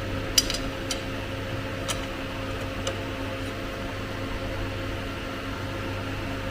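A few light, sharp clicks of a machined part being handled and seated into a fixture plate, clustered in the first three seconds, over a steady electrical hum.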